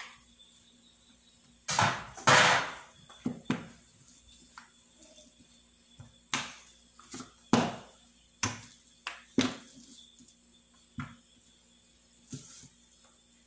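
A wooden rolling pin knocking and rolling against an oilcloth-covered table as a small ball of bread dough is rolled flat. The knocks are irregular, about a dozen in all, and the loudest and longest cluster comes about two seconds in.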